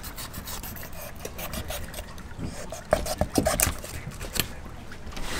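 Flexible fillet knife cutting behind the head of an Atlantic sharpnose shark, through its tough sandpaper-like skin and cartilage, as a string of small rasping clicks and crackles. The crackling is a little louder about three seconds in.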